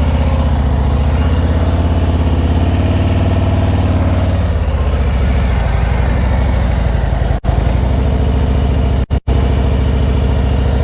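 Touring motorcycle's V-twin engine running at low speed through a U-turn, its revs rising a little and falling back about two to four seconds in. The sound cuts out briefly twice in the second half.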